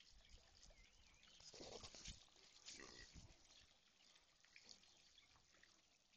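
Faint purring grunts from a small grey pet pig as a German shepherd noses at it, a little louder about two and three seconds in.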